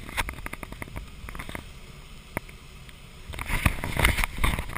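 Air rushing past a glider's cockpit canopy in flight, with a quick run of rattling clicks in the first second and a half and louder buffeting near the end.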